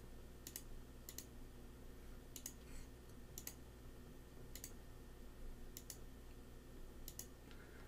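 Faint computer mouse clicks, about seven, spaced roughly a second apart, as digits are entered one by one on an on-screen calculator. A low steady hum lies under them.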